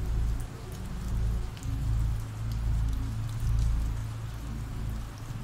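Ambient rain recording: steady rain with the patter of individual drops, over a low drone that swells and fades every second or two.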